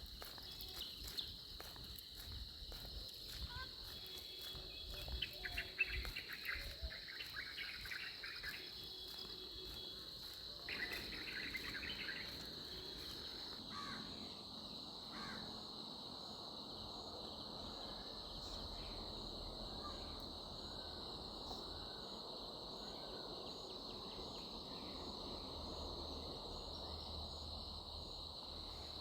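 Insects chirring in a steady high drone, with some louder, uneven sounds between about five and twelve seconds in.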